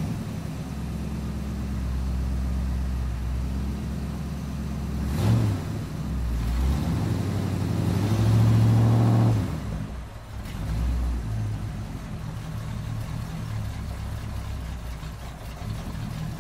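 Vehicle engine running, revving up around the middle and then settling back to a steady run.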